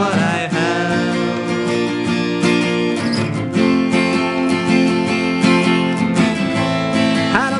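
Acoustic guitar strummed steadily with a second guitar playing along, in an instrumental break between sung lines of a live acoustic pop-rock song.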